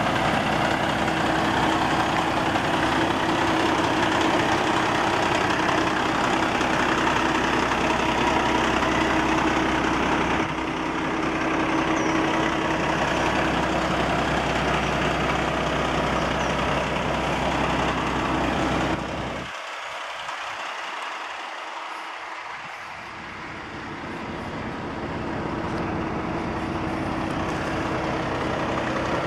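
Kenworth T880 truck's diesel engine idling steadily, dropping in level and thinning out for a few seconds about two-thirds of the way through.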